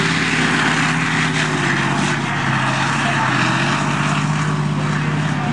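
T-72 tank's V12 diesel engine running with a steady drone as the tank drives across a dirt track.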